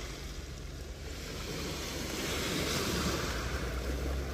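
Small waves washing onto a shingle beach, swelling to a peak near the end, over a low rumble of wind on the microphone.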